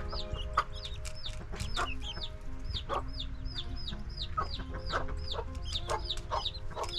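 Backyard chickens clucking, with many quick, high chirps repeating throughout.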